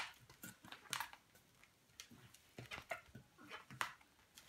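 Long latex modelling balloons rubbing against each other and being handled, heard as a scatter of short, faint scrapes and taps.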